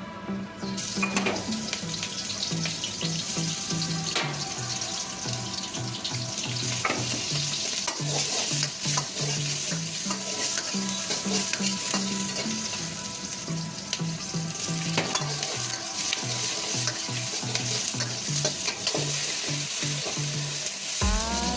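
Food sizzling as it fries in hot oil in a pan, with scrapes and knocks of stirring throughout. The sizzle starts about a second in.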